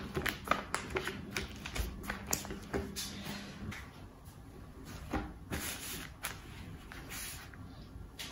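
Newspaper rustling and crackling as hands spread and smooth it flat on a tabletop, with quick taps and crinkles coming thick in the first few seconds and another burst of rustling past the middle.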